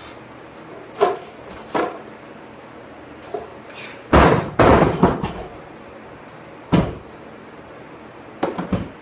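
Heavy plate-loaded barbell set down on wooden blocks: a loud clanking impact about four seconds in, with the plates rattling for about a second. One more sharp knock follows a couple of seconds later, then a few lighter clanks near the end.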